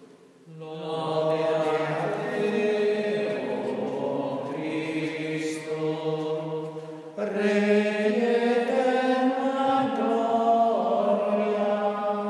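A man's voice singing a slow liturgical chant in long held notes, the pitch stepping up about seven seconds in.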